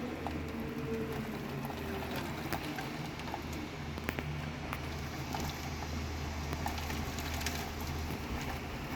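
Rainstorm: a steady hiss of heavy rain with scattered ticks of drops striking a surface, over a steady low rumble.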